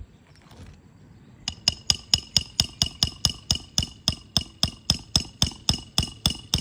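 Rapid, even hammer blows on a metal nail-driving tool, about four or five a second, each with a bright metallic ring. They start about a second and a half in, driving an oversized nail down through a roof shingle.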